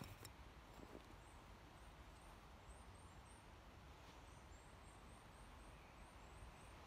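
Near silence: faint outdoor ambience with a low rumble and small, faint high chirps, with one faint click just after the start.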